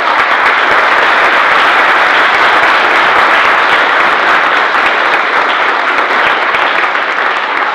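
Audience applauding: many people clapping at once in a dense, steady, loud wash that fades a little near the end.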